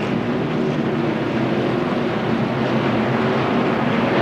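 V8 engines of a field of NASCAR Craftsman Truck Series race trucks droning steadily at low, caution-period pace speed, several engine notes overlapping.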